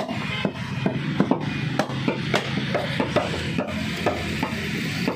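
Heavy meat cleaver chopping buffalo ribs on a wooden chopping block: a fast run of sharp chops, about two to three a second.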